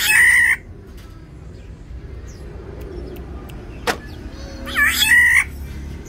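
Black-naped oriole giving two loud, harsh calls, one at the start and one about five seconds later, with a single sharp click between them.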